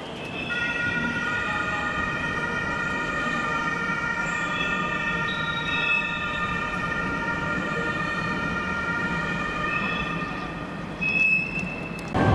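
Wheels of a metronom double-deck push-pull train squealing as it rounds curved track through the points: several steady high-pitched tones held together for about ten seconds, over a low rumble of the rolling train.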